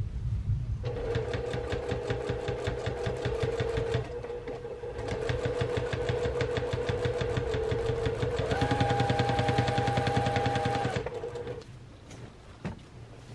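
Home sewing machine stitching through a quilt at speed, its motor running with a fast, even patter of needle strokes. It dips briefly about four seconds in and stops about eleven seconds in.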